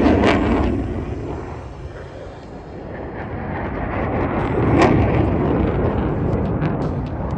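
Jet noise from two F-15C Eagle fighters maneuvering overhead: loud at the start, easing off about two seconds in, then swelling again, with a sharp crack about five seconds in.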